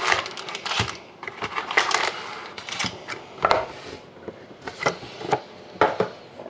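Foil card packs being lifted out of a cardboard box and set down in stacks on a desk: irregular crinkles of the foil wrappers and light taps as they land.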